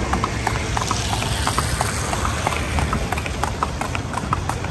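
Hooves of a carriage horse clip-clopping on the street in a quick, even rhythm as it pulls a horse-drawn carriage, over a steady low rumble.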